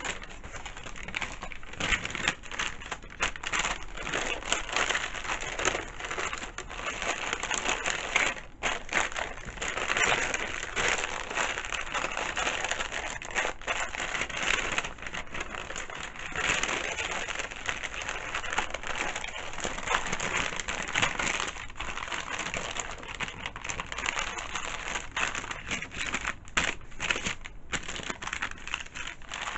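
Wrapping paper crinkling and rustling as it is handled, in an irregular run of crackles.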